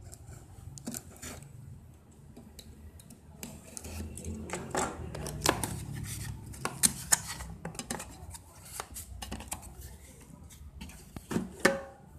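Utility knife cutting the packing tape on a cardboard carton, then the cardboard flaps being pulled open with a run of scrapes and clicks. Metal cans knock against each other and the box, loudest near the end as one is lifted out.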